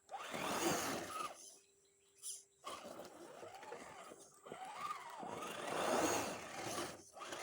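RC rock crawler's electric motor and geared drivetrain whining in short throttle bursts, its pitch rising and falling with each burst, with brief pauses between.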